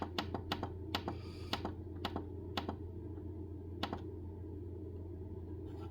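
Buttons on a Baxi boiler's timer programmer clicking as they are pressed: a quick run of presses through the first three seconds, one more about four seconds in and another at the end, over a steady low hum.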